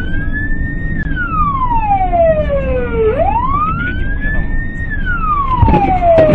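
Wailing siren, its pitch climbing slowly and then falling in a long glide, one cycle about every four seconds, over steady road and engine noise.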